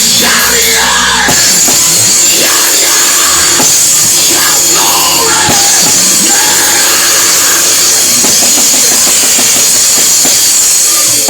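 Loud live church band music with a drum kit playing behind the preaching.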